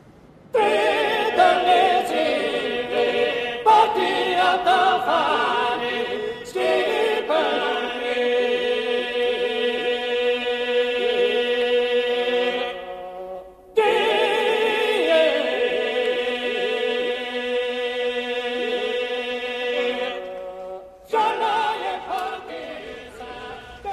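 Choir singing slow, long-held notes in chant-like phrases, breaking off briefly about halfway through before going on.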